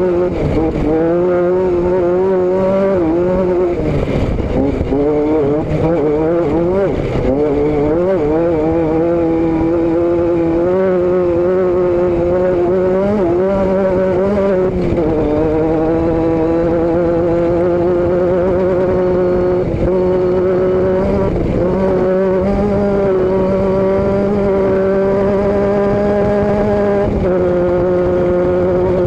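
A vehicle's engine and exhaust running steadily under way, the note wavering up and down with small changes in speed. The pitch dips about fifteen seconds in and again near the end.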